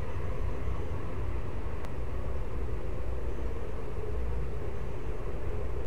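Car wash machinery running: a loud, steady rumble with a hum, with one faint sharp click about two seconds in.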